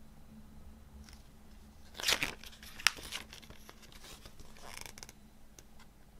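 Paper pages of a CD booklet turned by hand: a short rustle about two seconds in, a sharp snap just after it, then a softer rustle near the end.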